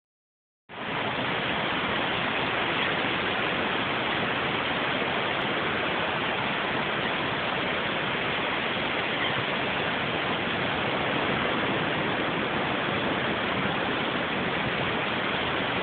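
Steady rushing roar of ocean surf breaking on a beach, starting abruptly just under a second in.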